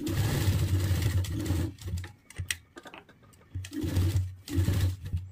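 Electric sewing machine stitching fabric in short runs: one run of about two seconds, a pause, then two shorter runs near the end.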